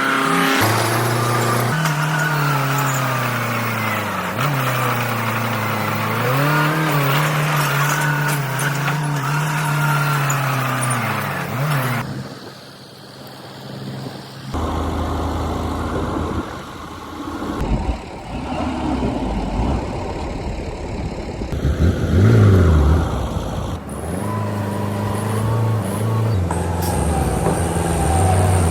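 Heavy construction machinery's diesel engines running under load, their pitch rising and falling as they work. The sound changes abruptly several times, with a deeper, louder engine through the middle stretch.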